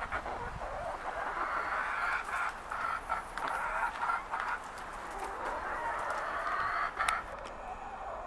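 Chickens clucking, many calls overlapping, with a sharp click about seven seconds in.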